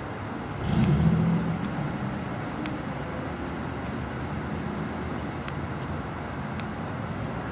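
Steady outdoor background noise with a low rumble that swells louder about a second in, and a few faint clicks.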